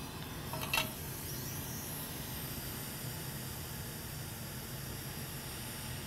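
Hot-air rework station blowing with a steady hiss while heating a circuit board during chip removal, with one brief sharp click under a second in.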